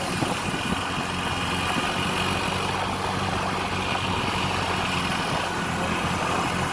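A bus's engine idling steadily, a low even hum with no revving.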